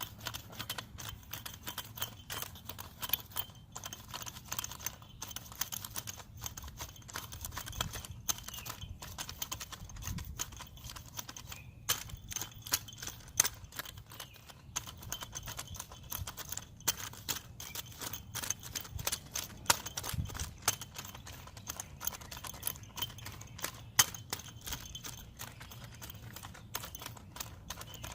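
Loose topsoil being stirred and scratched to mix grass seed in: a steady run of irregular scrapes and small gritty clicks.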